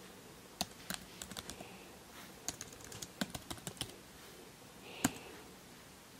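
Faint typing on a computer keyboard: a run of quick irregular key clicks, then one harder keystroke about five seconds in.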